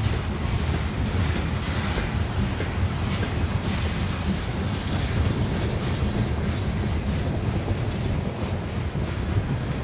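Freight train's covered hopper cars rolling past close by, their steel wheels running on the rails in a steady, continuous noise.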